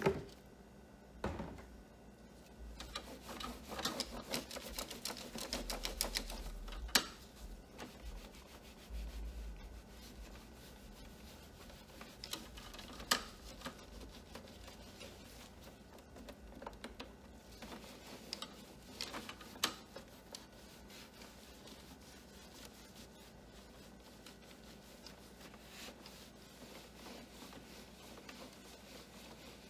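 A microfiber cloth rubbing and wiping over a printer's plastic casing and control panel in scuffing strokes. Scattered clicks and taps come through, busiest in the first several seconds, with a few sharp single clicks later and quieter wiping toward the end.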